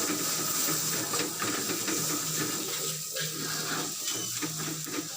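Kitchen work noise: a run of quick, irregular clicks and scrapes over a steady hiss.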